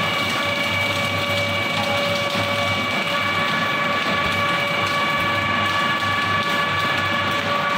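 Double-shaft wood shredder running under load, its electric drive giving a steady whine of several tones over a constant crackle and crunch as the twin shafts chew through leafy tree branches.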